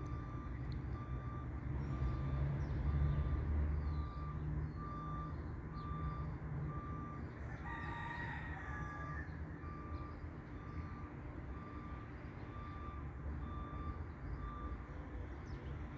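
A vehicle's reversing alarm beeps steadily about twice a second and stops near the end, over the low rumble of an engine. About halfway through, a rooster crows once.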